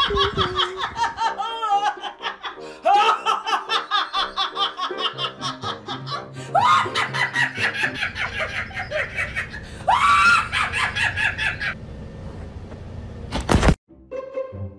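A woman laughing hard in repeated high-pitched fits, each starting with a rising whoop, over background music. It cuts off abruptly near the end.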